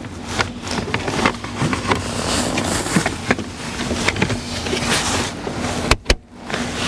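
Plastic interior trim and its wiring connectors being handled and snapped back into place: irregular clicks and rattles over a steady low hum, with two sharp snaps about six seconds in.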